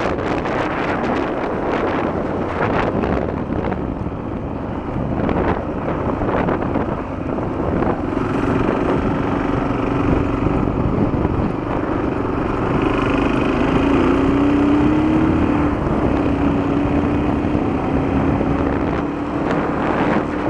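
Honda XL250 single-cylinder four-stroke motorcycle engine running under way, with wind buffeting the microphone. The engine note comes through more clearly from about the middle on, and wavers in pitch for a few seconds as the throttle changes.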